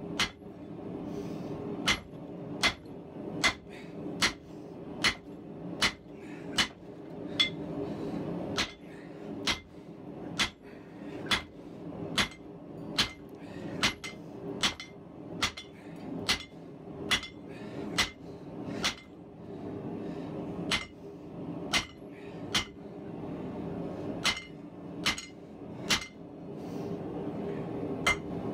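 Hand-forging with a hammer on a Harbor Freight anvil: steady blows on hot 4140 steel, about one and a third strikes a second, each with a short metallic ring. A steady low hum runs underneath.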